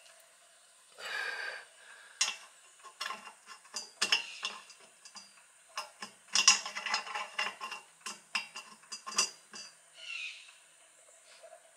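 Quick irregular clicks, taps and light rattles of a hand working a loose bulb and socket inside a metal headlight bucket, with a short rustle about a second in.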